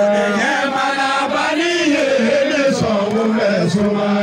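Men chanting zikiri, Islamic devotional song, through a public-address system: a steady low held note with a melodic vocal line moving above it.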